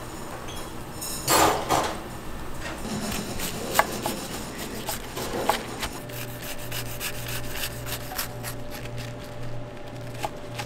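Kitchen food-prep noises: scraping and rubbing on a wooden surface with scattered knocks of utensils, the loudest scrape about a second and a half in. A low pulsing hum from a machine comes in about halfway through.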